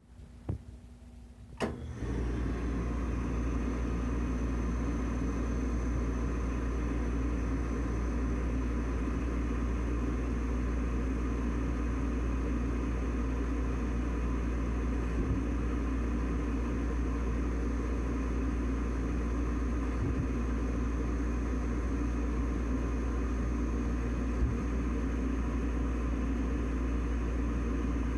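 Riello 40-F3 oil burner: a low hum and two clicks, then about two seconds in the burner comes on with a steady rumble that holds, with a few faint ticks. The owner calls it misfiring, after the control box was replaced following a lockout.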